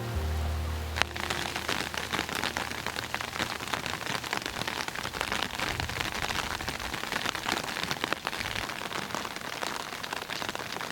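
Steady rain pattering, a dense run of small drop ticks, with one sharp click about a second in.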